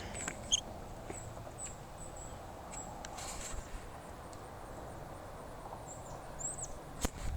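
Faint outdoor ambience with small birds chirping: short high chirps scattered throughout and a quick falling call near the end, followed by a couple of sharp clicks.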